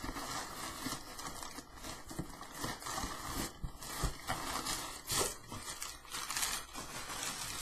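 A cardboard package being opened by hand: packing paper and tape crinkling and tearing, with scattered short knocks and scrapes.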